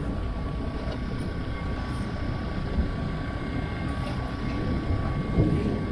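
Steady low rumble of wind and rough water around a small boat, with a faint steady high whine under it.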